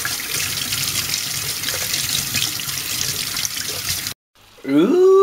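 Kitchen tap running into a stainless steel sink, water splashing over hands rinsing a handful of mushrooms; the steady rush cuts off suddenly about four seconds in.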